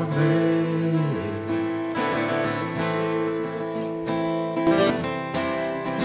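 Background music: strummed acoustic guitar with sustained chords.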